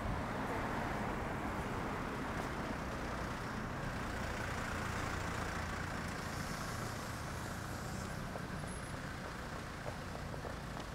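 Steady city street traffic noise, with the hum of vehicles passing that swells a little and then eases.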